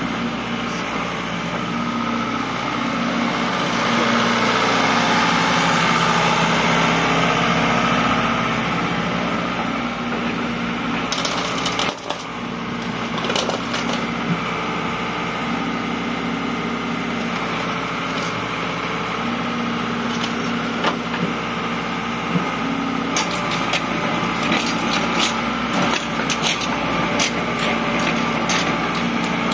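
Doosan DH55 mini excavator's diesel engine running under hydraulic load as the machine works its boom and moves, louder for a few seconds early in the stretch. In the last third, a run of short sharp metal clicks and clanks rides over the engine.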